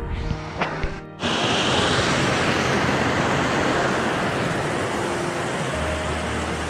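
Background music for about the first second, then a cut to the steady rush of water falling at a small mountain waterfall.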